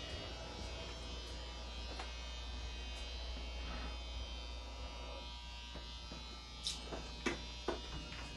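A steady electrical hum and buzz in a small room, with a few light clicks about two-thirds of the way through.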